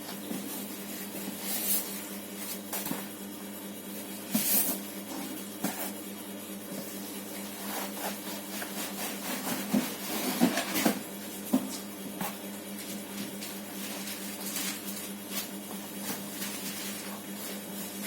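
Packaging being handled while unboxing a TV: intermittent rustling and scraping of cardboard and plastic wrapping, over a steady low hum.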